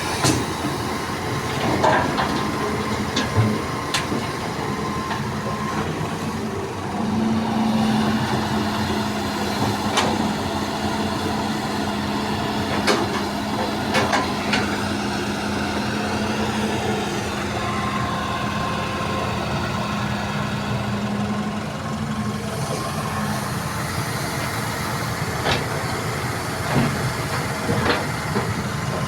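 Heavy diesel earthmoving machinery (an excavator and dump truck) running. A steadier, stronger engine note holds from about a quarter of the way in to about three quarters, with scattered sharp knocks and clanks.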